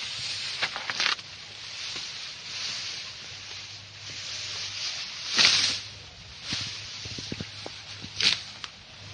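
An Asian elephant feeding, pulling and tearing tall grass and leafy stems with its trunk: rustling and ripping of vegetation in a few sharp swishes, the loudest a little past halfway and another near the end.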